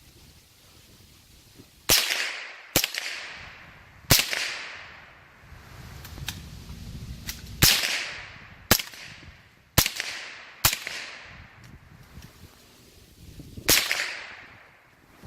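Smith & Wesson M&P15-22 semi-automatic rifle firing .22 LR rounds: eight sharp cracks at uneven intervals, most about a second apart, with a longer pause in the middle. Each crack trails off in a short echo.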